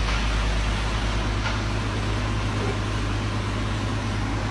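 An engine running steadily at an even speed: a constant low drone under a steady hiss.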